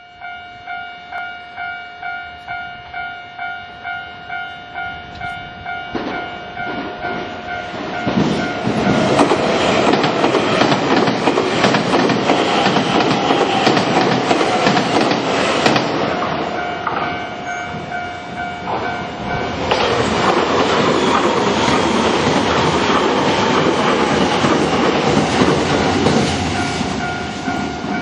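Japanese level-crossing warning bell ringing steadily at about one and a half strikes a second. Two electric trains pass over the crossing one after the other, each a loud rumble with wheels clattering over the rail joints, the second starting a couple of seconds after the first fades. The bell keeps ringing through both passes.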